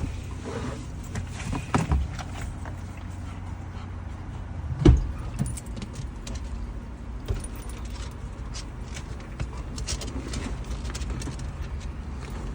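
Car engine idling steadily with metallic jangling and rummaging, many small clicks, and one loud thump about five seconds in.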